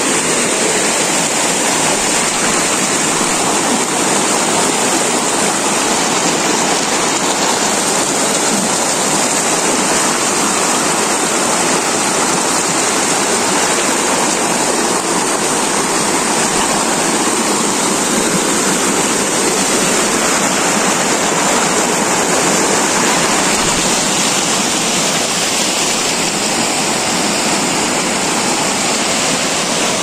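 Shallow stream rushing and splashing over rocks and small cascades: a steady, loud water noise.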